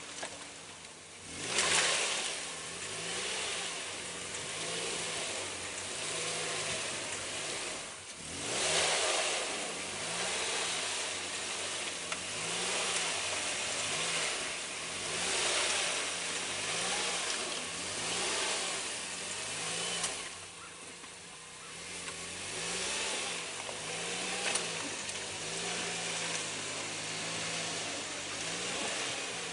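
Off-road vehicle's engine revving up and falling back over and over, about every two seconds, over the hiss of its wheels spinning without grip. Louder surges come about 2 and 8 seconds in.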